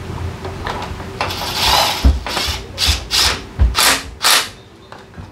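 Hand-tool mechanism noise on metal: about six short rasping strokes in quick succession over roughly three seconds, with a few dull knocks among them.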